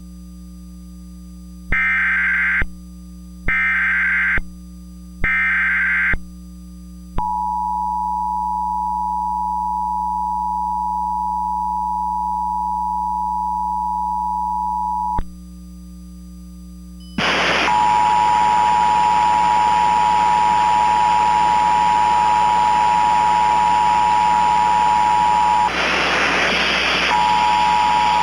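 Emergency Alert System tones: three short data bursts of the SAME header, then the two-tone attention signal held steady for about eight seconds over a low hum. After a short pause the two-tone signal starts again buried in loud static hiss, dropping out briefly near the end, the sound of an alert coming through with poor reception.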